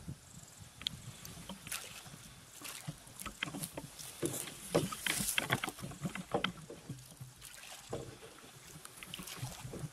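Small canoe paddled along a narrow, overgrown stream: irregular small splashes, drips and knocks. Around the middle there is a denser, louder spell of rustling and scraping as dry grass stalks brush against the boat.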